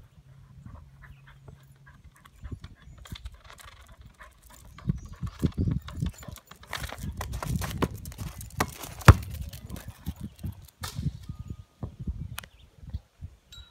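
Border collie pushing a basketball along an asphalt driveway: the ball knocking and rolling on the pavement and the dog's paws scuffing and clicking, busiest in the middle, with one sharp loud bounce of the ball about nine seconds in.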